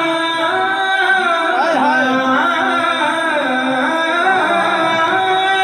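A man singing a devotional recitation into a microphone. His solo voice holds long, drawn-out notes with wavering, ornamented turns.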